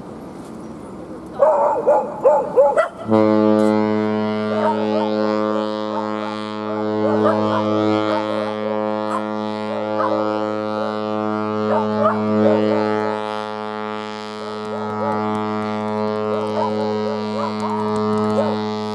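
The cruise ship Scarlet Lady's horn sounding one long, steady blast as she departs, starting about three seconds in. A dog barks sharply just before the horn starts and yelps over it.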